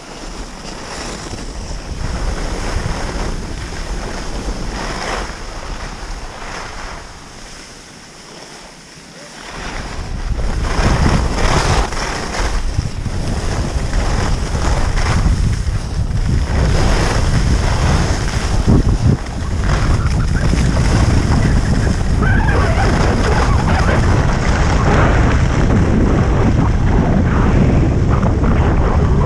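Wind buffeting the microphone of a camera carried by a skier running downhill, mixed with the hiss and scrape of skis on packed snow. The rumble dips briefly, then grows much louder about a third of the way in and stays loud.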